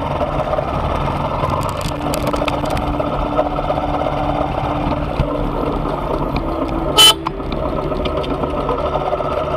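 Motorcycle engine running steadily on the move, with one short, loud horn beep about seven seconds in.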